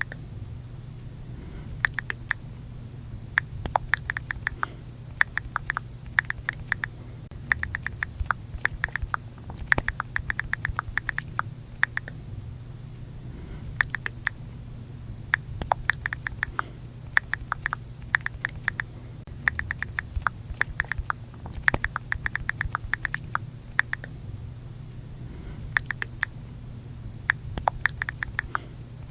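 iPhone on-screen keyboard click sounds: rapid runs of short, sharp ticks as keys are tapped, in bursts with brief pauses between, over a faint steady low hum.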